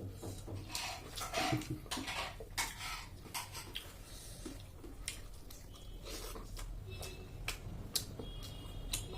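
Close-up eating sounds: irregular chewing and mouth smacks with clicks of a plate or utensil.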